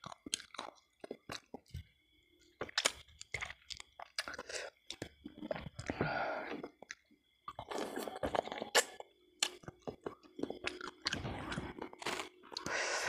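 Close-miked mouth sounds of a person chewing tender chicken: wet smacks and sharp clicks in irregular bursts, with a few short pauses.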